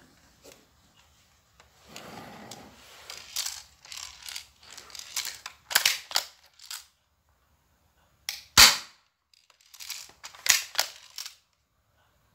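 Spring-powered airsoft Glock 18C replica being handled and cocked, a string of plastic clicks and rattles, then a single sharp shot a little past the middle as a 6mm BB is fired through a chronograph. A few more cocking clicks follow.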